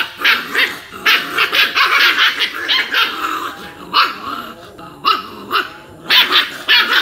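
Two puppies play-fighting, barking in short sharp yaps with growling underneath. The yaps come in a quick run of about three a second, then a few spaced-out ones near the end.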